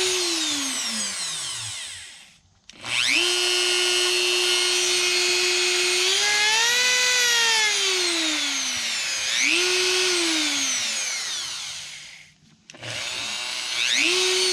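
Dremel 4200 rotary tool's motor whining, switched on and off several times: it spins down and stops, starts up and runs steady, speeds up and winds down, runs briefly twice more, each time coasting down after switch-off.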